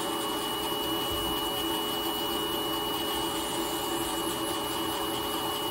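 Podiatry rotary nail drill running steadily, its burr grinding down a thick, crumbly fungal toenail: a continuous even whine with a thin high tone over it.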